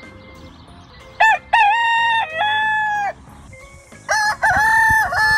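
Rooster crowing twice in full cock-a-doodle-doo calls, the first a little over a second in and the second about four seconds in. Each call opens with a short note and goes on into long held notes.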